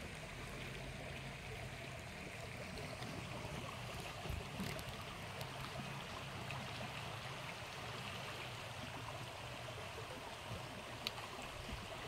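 Shallow, clear stream flowing over rocks with a steady, gentle rushing and babbling. A few faint ticks and one sharp click near the end sound over it.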